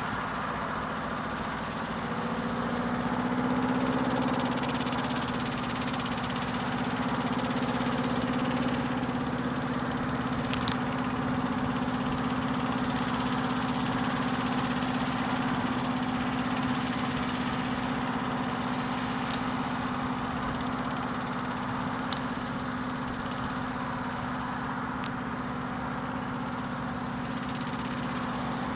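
Schweizer 300 helicopter's piston engine and rotor running steadily on the ground, with a slight swell in level a few seconds in.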